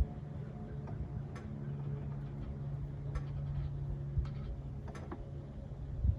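A few light clicks and taps as a fuel filter element is handled and seated in its housing, over a steady low hum.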